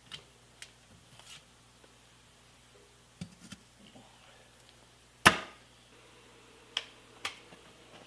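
Tongs setting a 3-inch 4140 steel cylinder into an electric heat-treating oven, with light knocks a little past three seconds as it goes down on the firebrick floor. Just after five seconds comes one sharp clank with a short ring, the loudest sound, then two smaller clicks near the end, over a steady low hum.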